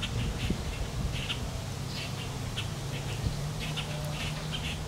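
Short, irregular wet squelches as fingers pull the guts from a rock bass, over a low steady hum.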